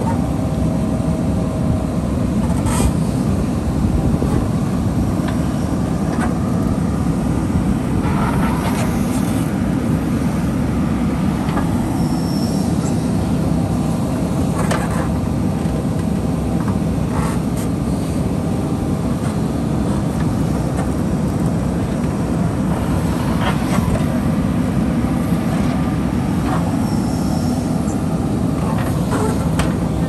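JCB 3DX backhoe loader's diesel engine running steadily under digging load as the backhoe bucket works through wet mud and gravel, with occasional short clanks and scrapes from the bucket and arm.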